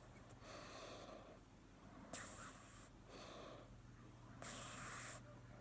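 A cat snoring softly in its sleep: slow breaths about every two and a half seconds, each a low snore followed by a breathier, hissing rush of air.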